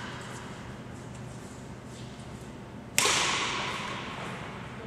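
A badminton racket striking a shuttlecock once, about three seconds in: a sharp crack that rings on in the sports hall's echo.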